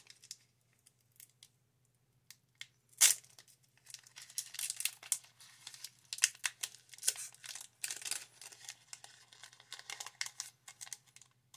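A foil Pokémon booster pack wrapper being torn open by hand: one sharp tear about three seconds in, then repeated crinkling as the top strip is pulled off and the wrapper opened.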